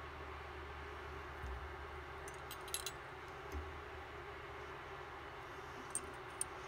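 Steady low hum with a few faint, short clicks of small metal fly-tying tools (bobbin and hackle pliers) handled at the vise while thread and hackle are wound on the hook.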